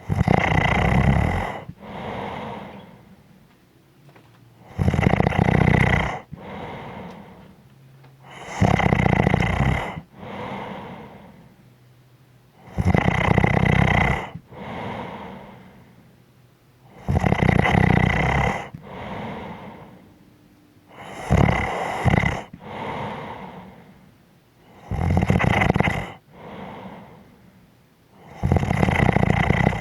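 A person snoring in a steady rhythm: a loud rumbling snore lasting about a second and a half, then a softer breath, repeating about every four seconds. Once, past the middle, the snore breaks into two short snorts.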